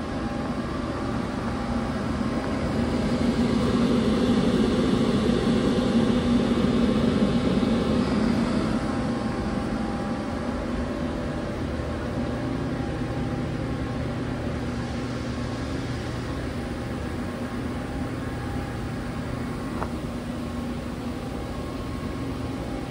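Powered-up 1998 Mori Seiki TL-40Y/3000 CNC lathe with its hydraulic unit and chip conveyor running: a steady machine hum with several steady tones under it. It grows louder a few seconds in and eases back by about ten seconds.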